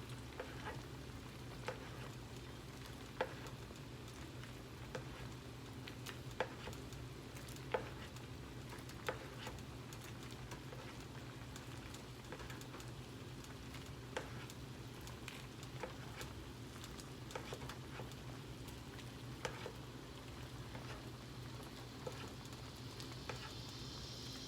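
Chicken simmering in seasoned liquid in a pot: a faint steady sizzle with scattered sharp clicks and pops, over a steady low hum.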